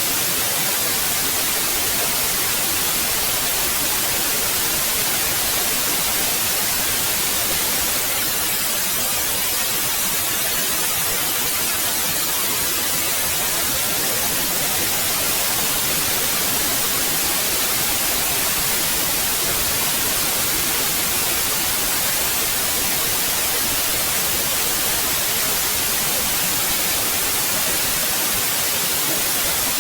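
Steady, loud white noise: an even hiss, strongest in the treble.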